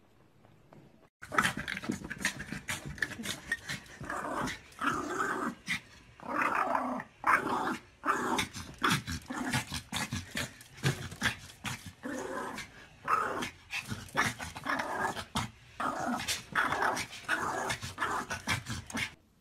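Small dog growling in rapid, broken bursts that start about a second in and keep going throughout.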